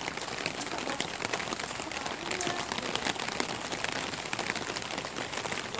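Steady rain on a clear plastic umbrella held over the microphone: a constant hiss thick with small, quick drop ticks.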